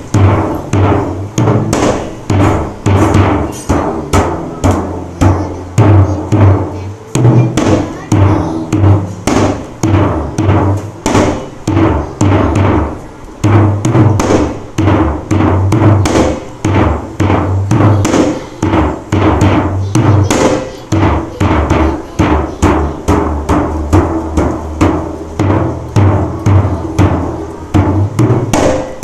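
Dhol struck again and again in a quick rhythm of several strokes a second, its bass head ringing deep after each stroke, as the drum is tested while being brought into tune.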